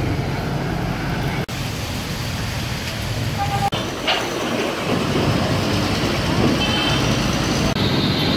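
Busy street traffic, the running engines of motorbikes and cars, as a steady rumbling hiss. It changes abruptly at several edits, with a brief tone a little over three seconds in.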